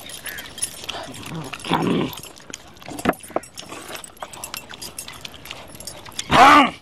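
Hands picking through a large metal platter of meat, with small scattered clicks and clinks. Two short pitched calls: one about two seconds in and a louder one near the end, rising then falling in pitch.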